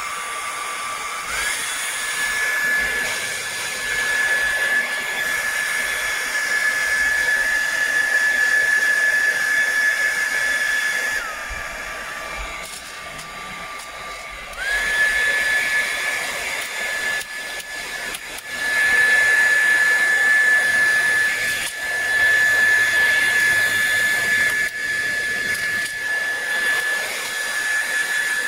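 A handheld hair dryer blowing on its cold setting, a steady rush of air with a motor whine. The whine steps up in pitch about a second in, drops back lower a little before halfway, then steps up again and holds. A few light knocks of handling come through in the second half.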